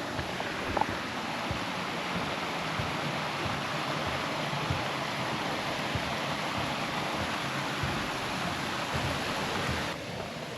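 Steady rushing water of a creek with waterfalls, a constant even hiss that falls away noticeably just before the end.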